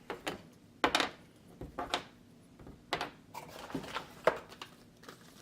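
Small hard plastic RC wheels and parts being handled: a string of light clicks and clattering knocks, roughly a second apart.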